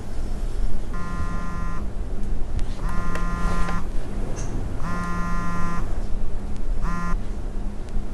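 Mobile phone ringing: four rings about two seconds apart, each just under a second long. The last ring is cut short as the call is answered.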